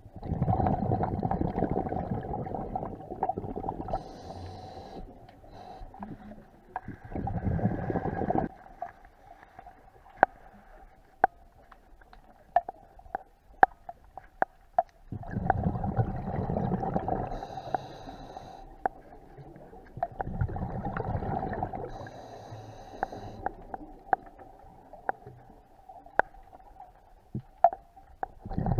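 Scuba diver breathing through a regulator underwater: four gurgling bursts of exhaled bubbles, each a couple of seconds long and several seconds apart, with a brief high hiss between some of them. Scattered sharp clicks throughout.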